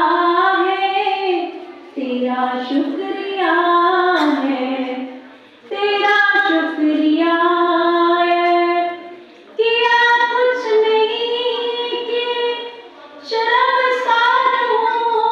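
A single high voice singing a slow song in long held phrases, with short breaks for breath every three to four seconds.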